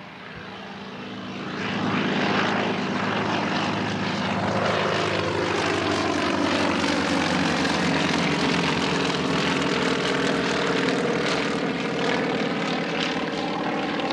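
Two Sukhoi aerobatic monoplanes' nine-cylinder radial engines and propellers at full power in a formation takeoff and climb. The sound grows louder over the first two seconds, then holds steady and loud, its pitch shifting as the planes pass.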